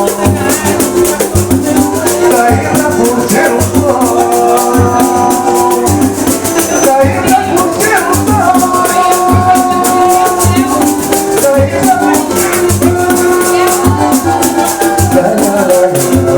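Music: a song with a steady low drum beat and a constant shaker rattle under a sustained melody.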